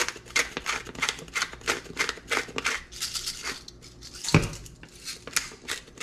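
Hand-twisted salt and pepper grinders grinding over a bowl: a fast run of gritty clicks, about four or five a second. About four seconds in, a single louder knock on the wooden cutting board.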